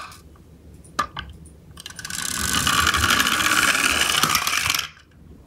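Plastic toy dump truck running down a ramp, its toy drive gears whirring. There is a click about a second in, and the whir cuts off sharply near five seconds.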